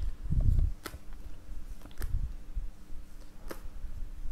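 Tarot cards being slid out of a face-down spread on a fleecy rug and laid down one by one: soft rubbing and dull taps, with a few short sharp clicks.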